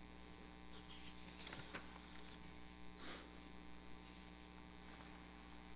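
Near silence with a steady low electrical hum from the sound system, and a few faint soft rustles.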